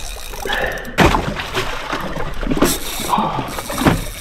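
Water sloshing and slapping against a boat's stern, with a sudden loud splash about a second in and a few more slaps after it.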